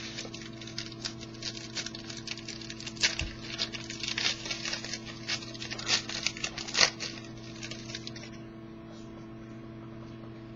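Trading cards being handled and slid against one another: a quick run of small clicks and rustles that stops about two seconds before the end, over a steady electrical hum.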